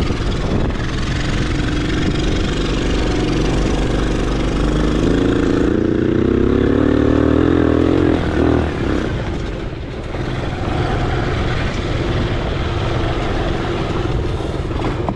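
Quad (ATV) engine running under throttle, revving up with a rising pitch from about four seconds in until about eight seconds, then dropping back and running on.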